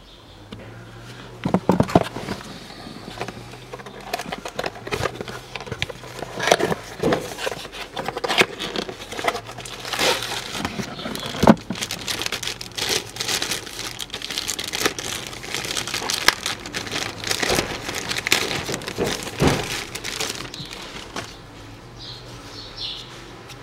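Irregular crinkling and rustling with scattered sharp clicks and knocks, from hands handling a cabin air filter and its wrapping during a filter change. The sounds die down shortly before the end.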